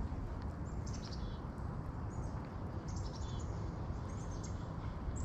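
Small birds giving short, high chirps every second or so over a steady low background noise.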